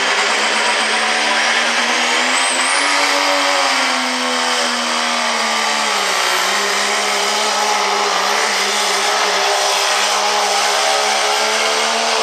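Diesel pickup truck engine at full throttle pulling a weight-transfer sled, its pitch rising a couple of seconds in and dropping about six seconds in, then holding steady. A high whistle rises briefly early on.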